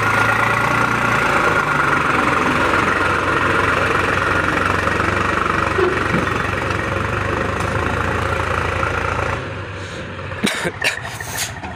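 Swaraj 735 tractor's diesel engine running at steady, high revs, labouring under the load of a heavy trolley it cannot pull out of soft dirt. About nine seconds in the engine sound drops away suddenly, followed by a few sharp clicks.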